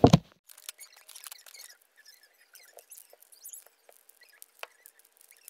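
A loud knock right at the start, then faint scattered clicks, crackles and small squeaks of a plastic blister pack being opened and the wooden blocks of a cube brain-teaser puzzle being handled.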